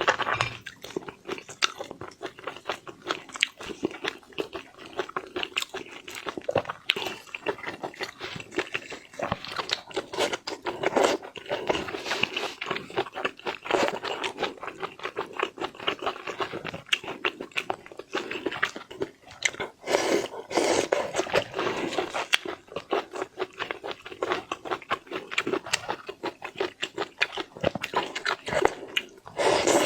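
Close-miked eating of seafood: continuous crunching, biting and chewing, a dense run of short crunches with no pauses.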